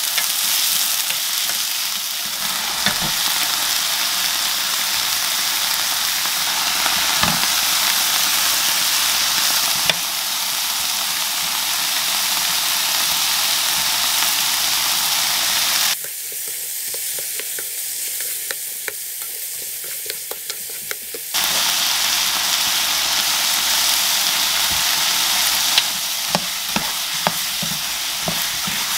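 Mushroom pieces and sausages sizzling in a hot nonstick wok as a wooden spatula stirs them, with small scrapes and taps of the spatula against the pan. The sizzle drops back for about five seconds past the middle, then comes back as strong as before.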